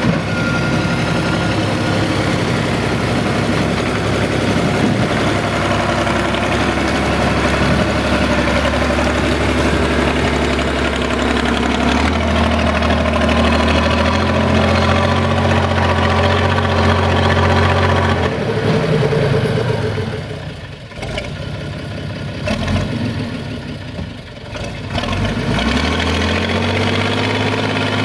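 SAME Laser 110 tractor's air-cooled diesel engine running, working harder from about twelve seconds in. Around twenty seconds in its revs fall away, then they climb again near the end.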